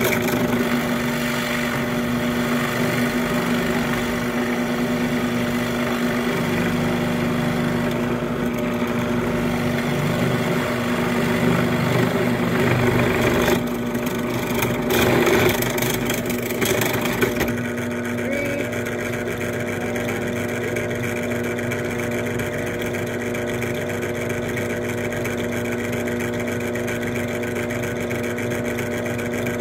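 Bench drill press motor running with a steady hum while the bit drills pilot holes into a wooden stool seat. The cutting noise is rougher and louder for the first half, peaking a little past the middle, then the press runs on free with just its even hum.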